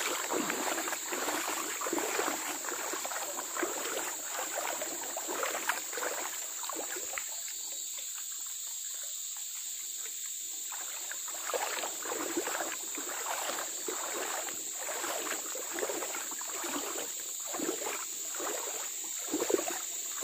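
Splashing steps wading through a shallow stream, irregular and repeated, easing off for a few seconds midway, over a steady high-pitched insect drone.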